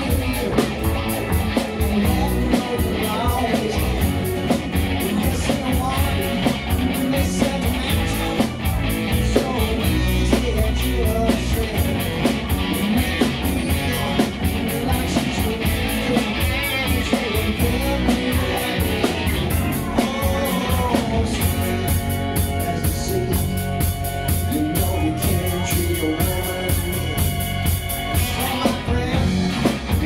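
Live rock band playing a song, with a singer, drums and guitar.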